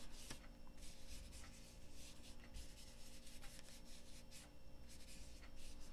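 Foam blending tool rubbing ink onto cardstock in small circles: faint, soft scrubbing strokes over a low steady hum.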